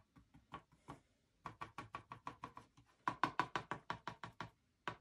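Paintbrush dabbed again and again onto a canvas, stippling in leaves: quick dull taps about six a second. A few scattered taps at first, then steady tapping from about a second and a half in, louder from about three seconds in.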